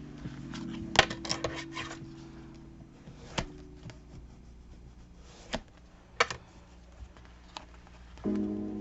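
Scattered sharp clicks, taps and rustles of paper and collage tools being handled on a tabletop, with a quick cluster of clicks about a second in. A new piece of background guitar music starts near the end.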